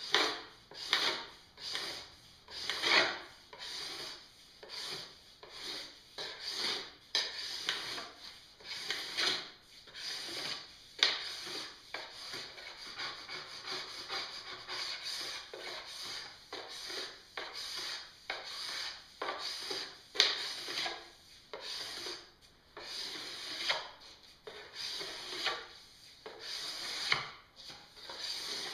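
A metal scraper drawn in repeated short strokes, about one or two a second, along a snowboard's base, shaving the hardened P-tex filler down flush with the base.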